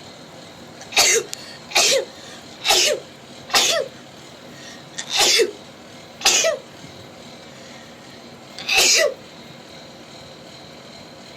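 A woman sneezing seven times in a rapid fit. Four sneezes come about a second apart, then two more after a short pause, then a last one a couple of seconds later.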